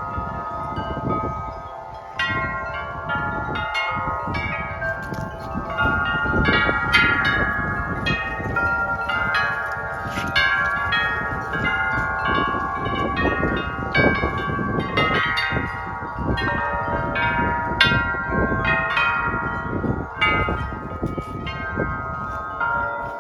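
Wind chimes ringing in the wind, struck over and over so that many notes overlap and sustain. A fluctuating low rumble runs underneath.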